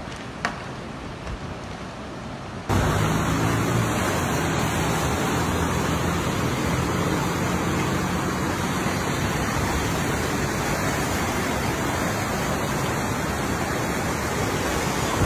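Floodwater from the overflowing Tula River rushing in a steady noisy torrent. It jumps abruptly much louder about three seconds in.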